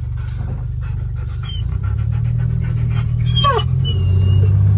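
A dog panting over the low hum of a running vehicle engine, whose note rises slightly about two seconds in. Near the end there is a short high whine that falls in pitch.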